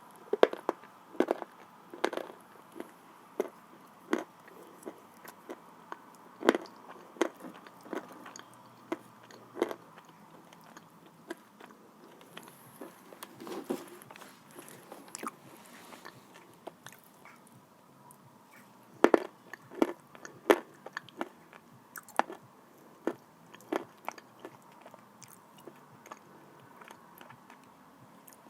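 A person biting and chewing pieces of dry, salted blue Uzbek clay close to the microphone: irregular sharp crunches, thickest near the start and again about two-thirds of the way through, with softer chewing in between.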